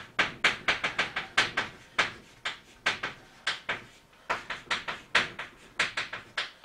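Chalk tapping and scratching on a blackboard as characters are written: quick clusters of sharp taps, several a second, with short pauses between strokes.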